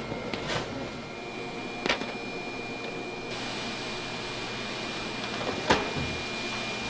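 Steady kitchen room hum and hiss with a faint high whine, broken by three short light knocks, the loudest near the end.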